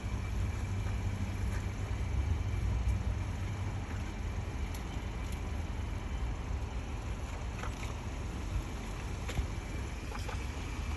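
Strong wind gusting, with a steady low rumble of wind on the microphone and a few faint ticks.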